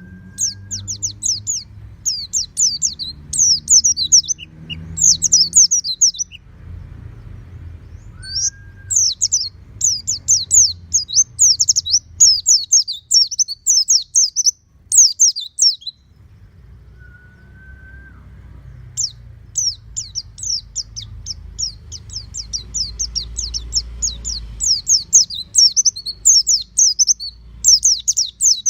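White-eye (pleci) singing in long, rapid runs of high, quick chirps, with two pauses of a couple of seconds. A short, lower whistle sounds three times, and a faint low rumble runs underneath.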